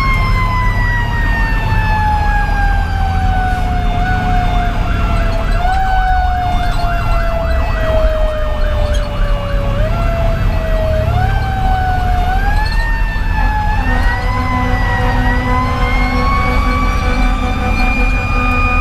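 Federal Q2B mechanical siren on a 2010 Pierce Velocity fire engine, slowly winding down in pitch for about ten seconds, then spun back up in short pushes and held high near the end. In the middle an electronic siren yelps rapidly over it, with the diesel engine and cab rumble underneath.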